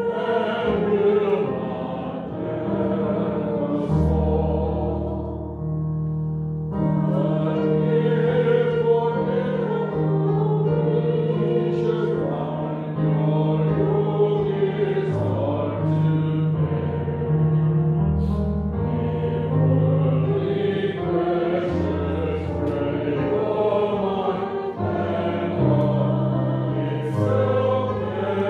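Hymn singing with keyboard accompaniment: voices carry a slow melody over long, held low bass notes that change every second or two.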